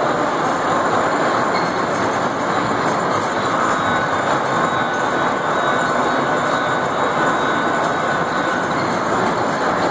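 Small electric kiddie ride train running around its circular steel track, its wheels rolling on the rails in a steady, continuous rumble.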